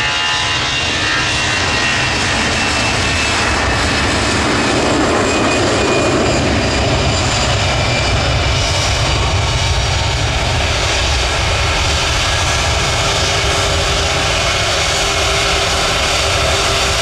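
Jet airliner's engines running close by: a loud, steady rushing noise with several high whining tones over it.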